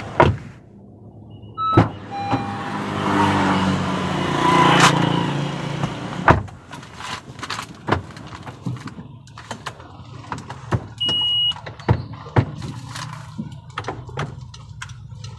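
Inside a Honda CR-V cabin: a few seconds of louder engine sound that swells and then drops back, followed by scattered clicks and knocks and a short electronic beep.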